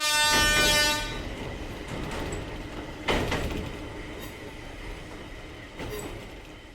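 A train's horn sounds once for about a second, then the train runs on, with a sharp knock about three seconds in and a lighter one near six seconds.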